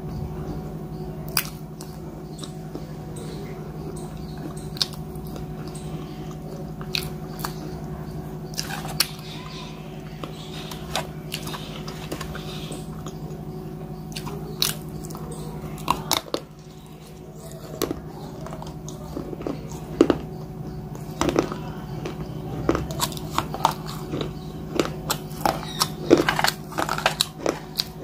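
Close-up eating sounds: crisp crunching bites and chewing, with sharp clicks, sparse at first and coming rapidly in the last several seconds, over a steady low hum.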